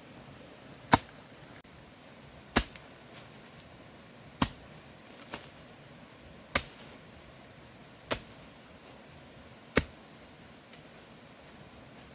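Six sharp strikes of a hand tool, one about every one and a half to two seconds, with a couple of fainter taps between them: steady chopping or hammering work.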